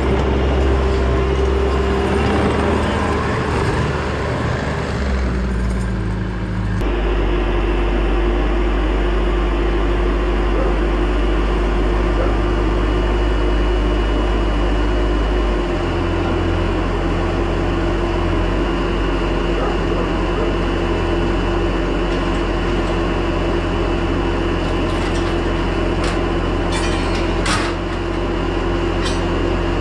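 Engine of a heavy machine running steadily, with its note shifting abruptly twice; a few sharp knocks near the end.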